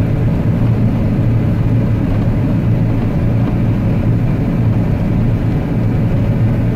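John Deere combine running steadily under load while threshing winter wheat, heard from inside the cab as a steady low drone.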